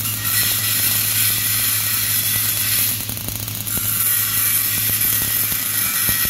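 MAG (gas metal arc) welding torch arc crackling and hissing steadily as a vertical weld is run up a steel plate, over a constant low hum.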